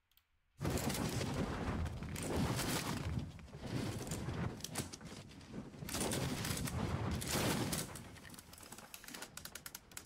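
AI-generated sound effect (ElevenLabs text-to-sound) for a samurai battle scene with swords and smoke: a dense, noisy battle clatter full of sharp clicks and cracks. It starts about half a second in, dips a few times, and breaks into rapid clicking near the end.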